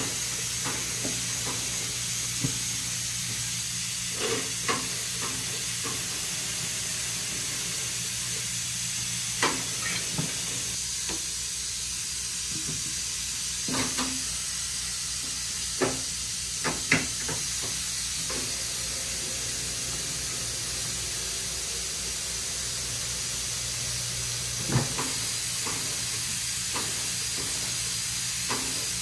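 A steady hiss over a low machine hum, broken by scattered short clicks and clanks, the sound of tyres being changed in a shop.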